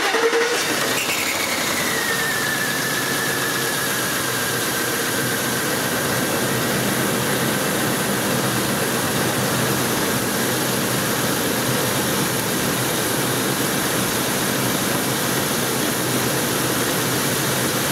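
Ford 5.4-litre V8 idling right after start-up, misfiring on cylinder 8 from an injector that isn't firing. A high whistle comes in about a second in, falls in pitch over the next few seconds, then holds steady.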